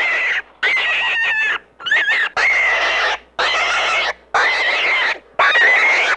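An animal calling over and over, about six high-pitched calls, each just under a second long, with short breaks between them.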